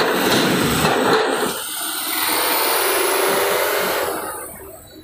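Cargo truck driving off the ferry past close by over the steel-grated ramp, engine and tyres loud and steady, then fading away from about four seconds in.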